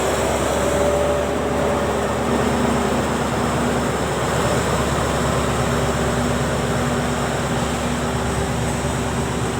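Diesel train running steadily, a continuous engine rumble with a held hum over it.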